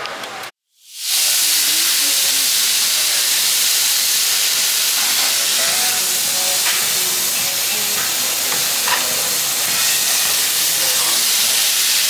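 Marinated meat sizzling steadily on a tabletop Korean barbecue grill, a loud even hiss that starts about a second in after a brief dropout.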